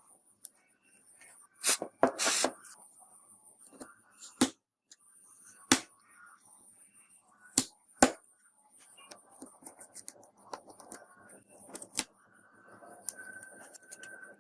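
Small tools and fingers clicking and tapping against a smartphone's casing and screen during disassembly, with a string of sharp clicks at irregular intervals and faint scraping between them.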